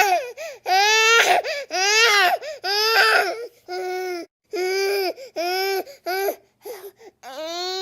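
A baby crying in a run of short, high wails, about one a second, each rising and falling in pitch, with brief breaks for breath between them.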